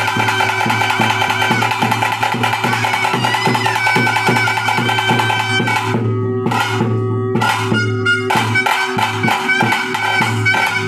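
Music with a steady drum beat over a sustained melody and drone. About six seconds in, the high parts drop out briefly twice.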